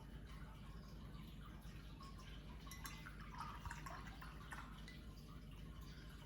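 Faint little water sounds and light clicks of a watercolour brush being dipped and rinsed in water and worked on the paint, most of them a few seconds in, over a low steady hum.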